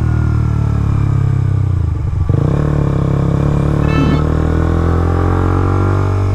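Suzuki GSX-R125's single-cylinder engine running steadily under way, heard from the bike. It drops off briefly about two seconds in and then picks up again. A brief high tone sounds about four seconds in.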